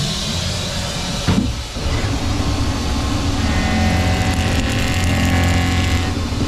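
Swiss-type CNC lathe running, its live-tooled end mill milling the pyramid point of a brass arrowhead blank, over a steady low machine hum. A short rising whir comes about a second in, and a steady whining cutting tone joins from about three and a half to six seconds in.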